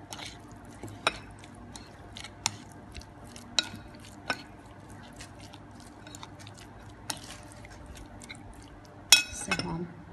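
A spoon stirring and tossing sauced shredded chicken in a bowl, with light clinks of the spoon against the bowl every second or so and a louder clatter about nine seconds in.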